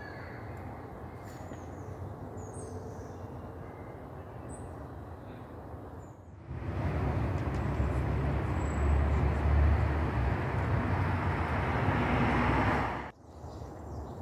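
Outdoor ambience: a steady low hiss with a few faint high chirps, then, after a sudden cut about six seconds in, a louder steady rushing noise with a strong low rumble, which breaks off at another cut near the end.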